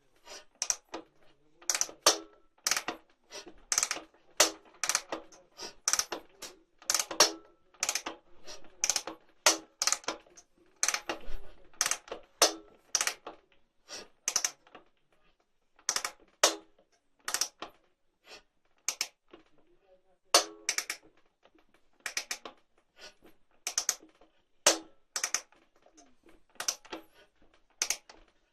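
Sharp, ringing metallic knocks from the camshaft area of a Dnepr 11 motorcycle's boxer-twin engine, repeating one or two times a second at uneven intervals. The knock comes from the camshaft gear having turned slightly on the shaft and worn out its keyway.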